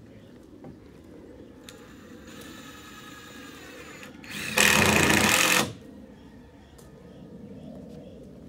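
A power tool whines quietly for a couple of seconds, then runs loudly for just over a second before cutting off.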